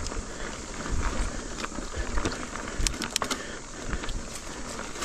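Ibis Ripley AF mountain bike ridden over a rooty dirt trail: tyres rolling over dirt and roots with low thumps from the bumps. The bike rattles in a cluster of sharp clicks and knocks about three seconds in.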